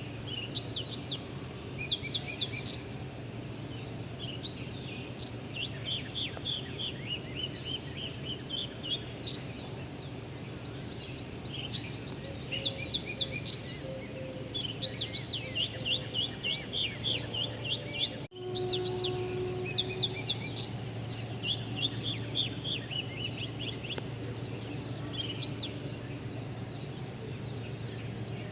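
Several small birds chirping and twittering, in quick runs of short high chirps that overlap one another, over a steady low hum. The sound drops out for an instant about two-thirds of the way through, then the chirping carries on.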